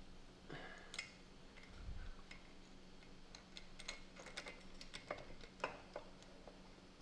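Faint, scattered light metal clicks and taps from hand work on a motorcycle engine's cylinder head, bunched together in the middle of the stretch, over a steady low hum.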